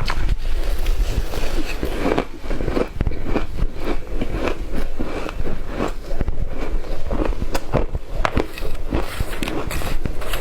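Shaved ice being bitten and chewed close to the microphone: a dense, irregular run of crunches with no pause.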